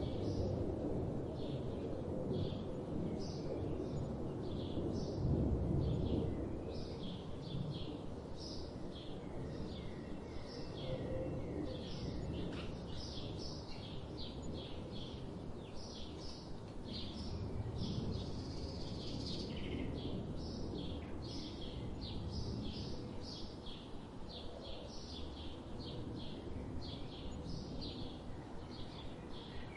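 Birds chirping continuously: a dense stream of short, high chirps, several a second, over a steady low outdoor rumble.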